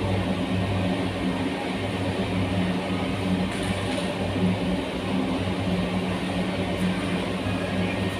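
Cremation furnace burner running steadily: a low hum under an even rush of noise, with a couple of faint ticks.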